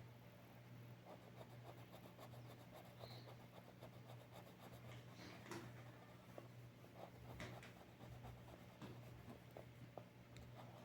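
Faint scratching of a colored pencil stroking back and forth on paper, in many short irregular strokes, over a steady low hum.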